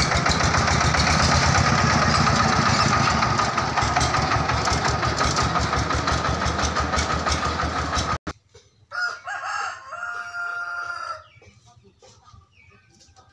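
The engine of a mobile rice-hulling vehicle runs steadily with a rapid, even beat, then cuts off abruptly after about eight seconds. A rooster then crows once.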